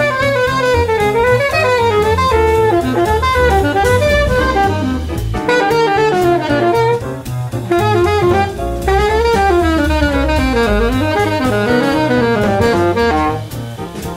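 Saxophone playing a fast, winding jazz line over a backing track of drums and a walking bass, with short breaks for breath twice.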